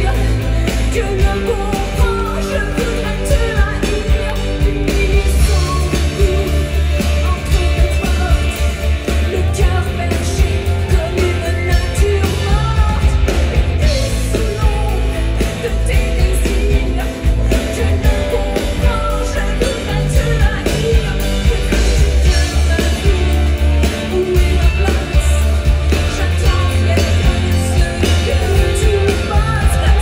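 Live pop-rock band playing loud through a PA: a woman singing over a drum kit and electric guitar.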